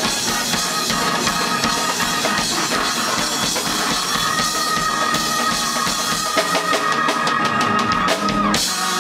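Live band of drum kit, electric bass and keyboard playing the close of a song. A held note comes in about halfway, and a run of rapid drum and cymbal hits near the end cuts off sharply just before the end.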